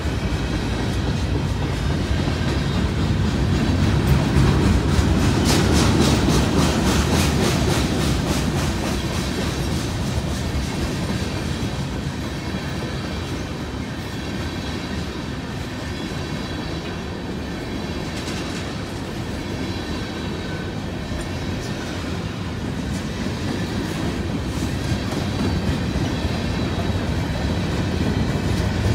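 Freight train's covered hoppers and tank cars rolling past at speed: a steady rumble with the wheels clicking rapidly over the rail joints, loudest about five to eight seconds in.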